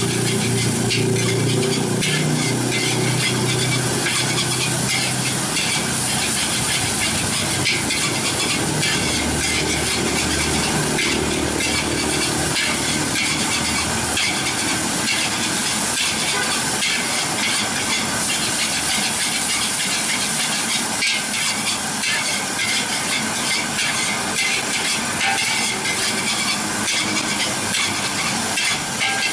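Fried rice with squid rings sizzling in a large wok, with a long-handled metal spatula scraping and clacking against the pan as it is stir-fried over a steady hiss.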